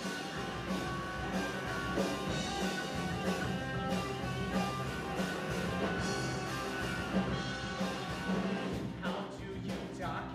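Rock music with guitar and a regular beat.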